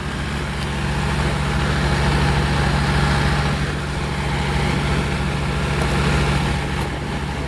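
Heavy diesel truck engines running steadily at low revs, a deep even hum that swells slightly after about a second.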